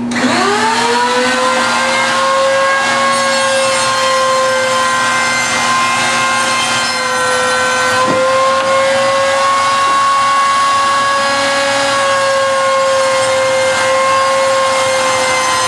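Router spinning up to speed, then running with a steady whine while cutting an edge rabbet into a wooden ski core, and winding down at the end.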